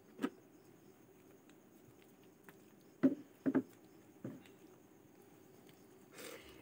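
Fingers picking through boiled chicken and beans on a plate: soft clicks and taps, with a cluster of three or four sharper ones a little past halfway. Near the end comes a short wet noise as a handful of food goes into the mouth.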